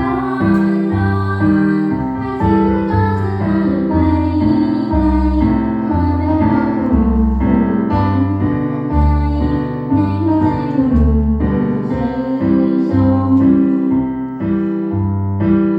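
Pop song with female singing over piano or electric keyboard and a steady, rhythmic bass line.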